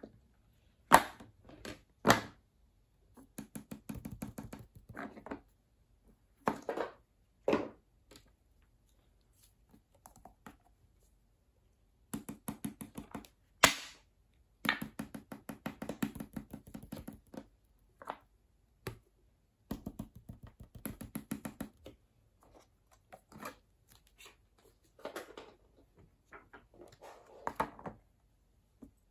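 Toys being set down and handled on a sheet of paper over a hard table: scattered thunks and sharp taps, with stretches of scratchy rustling between them and short quiet gaps.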